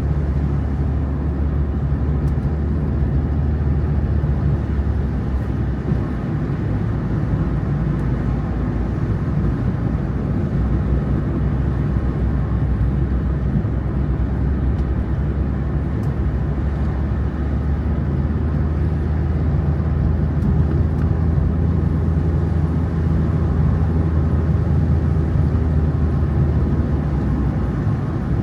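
Steady low drone of a road vehicle in motion, running evenly throughout.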